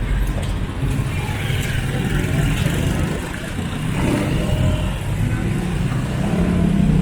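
Busy street ambience dominated by a steady low rumble of motor-vehicle engines.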